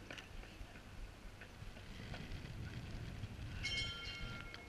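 A low rumble builds, then a high-pitched metallic squeal of several steady tones at once sounds for about a second near the end.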